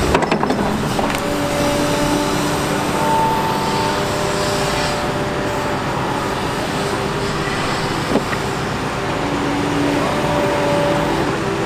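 Sany SY215C crawler excavator's diesel engine running under load, with steady whining tones from its hydraulics that come and go as it swings and digs. A few knocks at the start and one sharp knock about eight seconds in.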